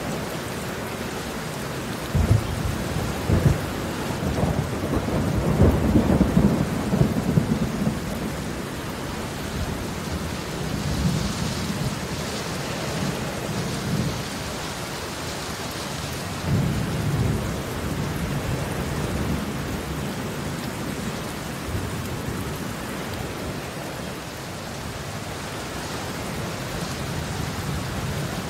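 Rain falling steadily on wet concrete pavement, with low rumbles swelling and fading over it: a long one a few seconds in, the loudest, and shorter ones later.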